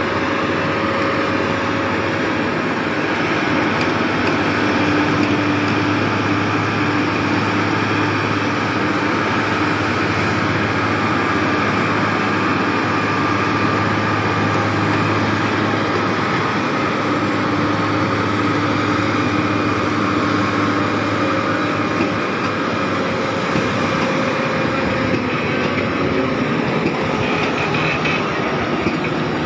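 Heavy-haul Volvo truck diesel engines running steadily under heavy load, hauling a multi-axle trailer with an over-dimensional load over a railway crossing. The low drone drops away about three-quarters of the way through.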